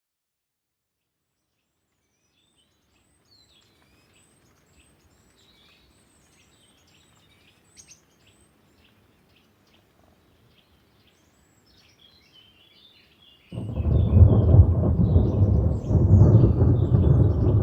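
Birds chirping faintly over a light hiss of rain, then, about three-quarters of the way through, a loud rumble of thunder breaks in suddenly and keeps rolling.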